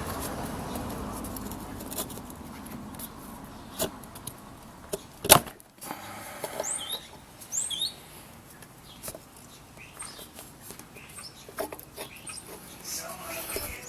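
Scattered light metal clicks and taps from hand tools working stuck brake pads in a motorcycle's rear brake caliper, with one sharp clack about five seconds in. A bird chirps twice in the background a little after that.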